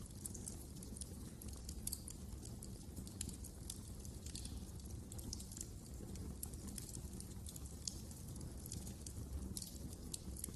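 Wood fire burning in a fireplace: frequent small, irregular crackles and pops over a steady low rumble of the flames.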